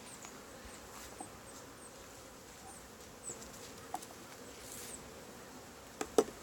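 Honey bees buzzing around an open five-frame nuc hive, a steady hum, with two sharp knocks just before the end.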